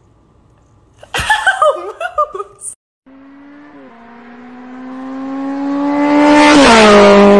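Short bursts of a laughing voice, then, from about three seconds in, a steady motor hum that grows steadily louder. Its pitch creeps up slowly and then drops near the end.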